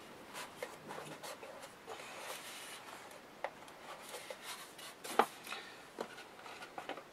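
Faint rubbing and scraping with a few light knocks, the loudest a little past five seconds in, as a Blu-ray box set case is handled and set back on a bookshelf.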